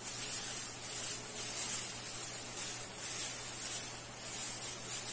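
Metallic tinsel garland rustling and crinkling as it is wound by hand around a wire ring: a high hiss that swells and fades with each pass of the hands, over a faint steady hum.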